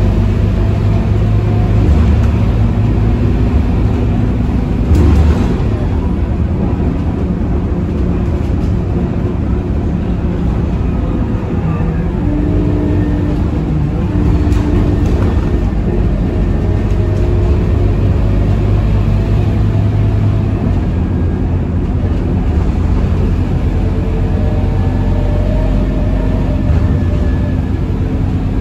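Scania K230UB city bus's diesel engine and road noise heard inside the passenger cabin while cruising, a steady low hum that shifts in pitch about twenty seconds in. A single knock about five seconds in.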